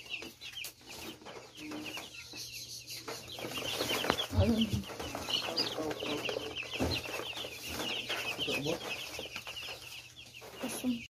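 A brood of young broiler chicks peeping constantly in many short, high chirps, with rustling as paper bedding is handled in their cardboard box and a couple of low bumps.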